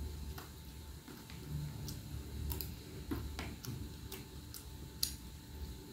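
Someone eating by hand from a plate of rice and side dishes: a scatter of small, irregular clicks and smacks, with one sharper click near the end.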